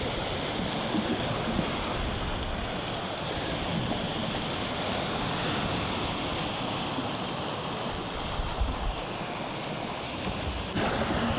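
Sea surf washing and breaking over a rocky shore, a steady rushing noise, with wind buffeting the microphone in low gusts, more so near the end.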